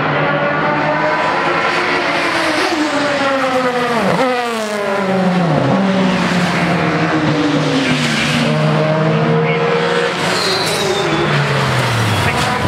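Several racing saloon cars' engines passing at speed, overlapping one another, their pitch dropping sharply as each goes by, about four seconds in and again near the end.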